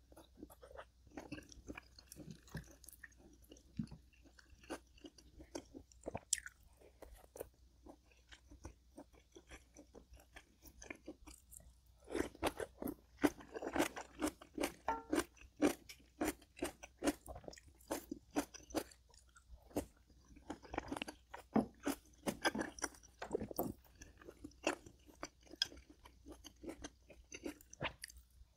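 A person chewing and crunching food close to the microphone, a steady run of sharp crunches and clicks that grows loudest and densest about twelve seconds in and again around twenty-one seconds in.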